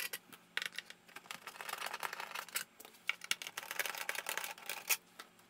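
Hand screwdriver backing machine screws out of a metal instrument case: a quiet, irregular run of small clicks and ticks.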